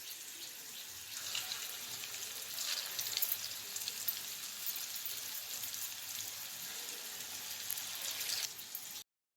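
Medu vada (urad dal batter fritters) deep-frying in hot oil: a steady sizzling crackle that swells briefly a couple of times, then cuts off suddenly near the end.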